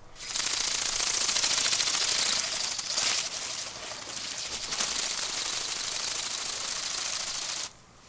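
Bionic Bird flapping-wing drone's small motor and beating wings making a rapid, high-pitched clattering buzz, loudest in the first couple of seconds, then steady, stopping abruptly shortly before the end.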